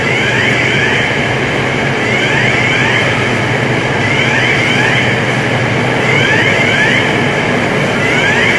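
Building fire alarm sounding: groups of two or three short rising whoop tones repeat about every two seconds over a steady, loud din.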